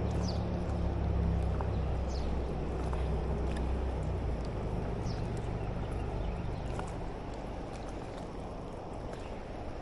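Steady rush of a swollen creek flowing, with a low rumble that fades away over the first four seconds. A few short, faint high chirps are heard above the water.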